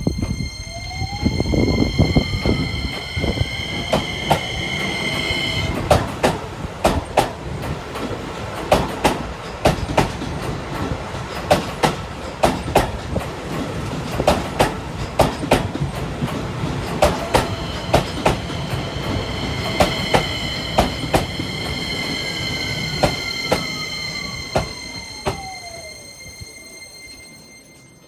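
Keisei electric train pulling away: its inverter motor whine rises in pitch over the first few seconds, followed by a long run of sharp wheel clacks over rail joints. In the second half a falling inverter whine comes in as a train slows, and the sound fades near the end.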